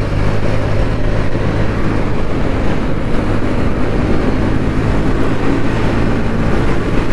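Motorcycle engine running steadily while riding, its low hum under a constant rush of wind and road noise.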